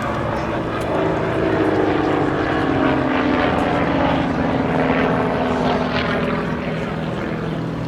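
Van's RV-8 propeller aircraft engines droning steadily in flight, the pitch slowly falling as they pass.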